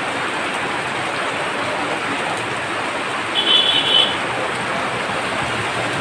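Steady rain, an even hiss. About three and a half seconds in, a brief high-pitched tone sounds over it for under a second.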